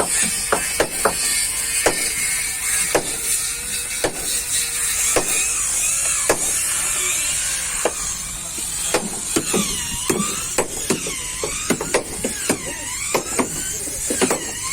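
Shipyard workers hammering on a wooden boat's hull planks: irregular sharp knocks, roughly one or two a second. In the second half a squealing sound repeatedly dips and rises in pitch, over a steady high hiss.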